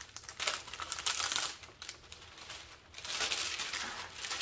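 Clear plastic protective film on a glue-coated diamond painting canvas crinkling and crackling as it is lifted and smoothed back down by hand, to take the creases out of it. Two spells of crackling with a quieter lull in the middle.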